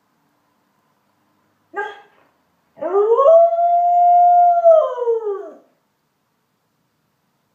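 Dog howling: a brief yip about two seconds in, then one long howl that rises, holds steady and falls away, lasting nearly three seconds.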